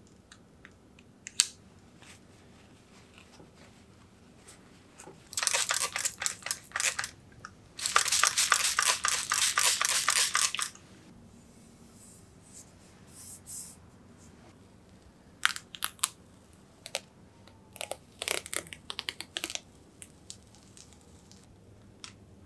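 Vinyl bike-frame decals being peeled from their backing paper and pressed down by hand: two long bursts of crackly peeling and crinkling about five and eight seconds in, then scattered light ticks and short rustles of the backing.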